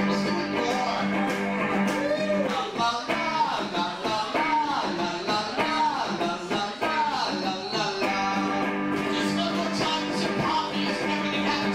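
A man singing a rock song live while playing an electric guitar. The guitar holds a chord under a voice line that bends up and down through the middle.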